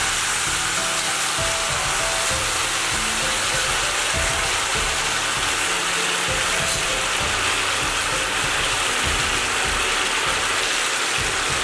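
Braised duck and its sauce sizzling steadily in a hot clay pot, a continuous even hiss, with soft background music.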